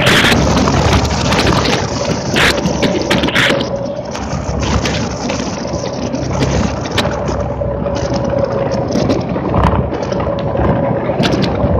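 Onboard running noise of a small Electrathon electric race car at speed: steady tyre, road and wind noise with a faint wavering whine, broken by frequent short rattles and knocks from the chassis.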